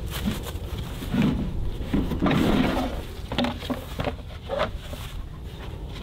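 A plywood sheet and a plastic dog-crate bottom being lifted and pulled off a metal gear cart: irregular knocks, clatter and scrapes, busiest in the first half, with a few sharp clicks after.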